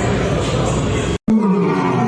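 A loud, noisy mix cuts off abruptly just over a second in. Then a deep roar begins, its pitch falling steadily.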